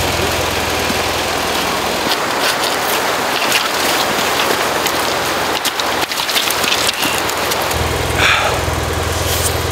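Shallow mountain stream rushing over rocks, an even hiss, with scattered knocks. A motorcycle engine idles underneath at first, drops out about two seconds in, and is back near the end.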